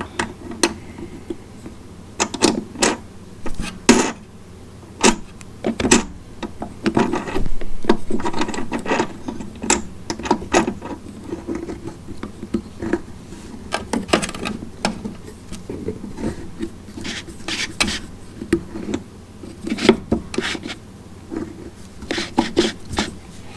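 Plastic spool-hub parts of a MIG welder being handled and fitted onto the spool spindle: irregular clicks and knocks, with a longer stretch of rubbing and scraping about a third of the way in.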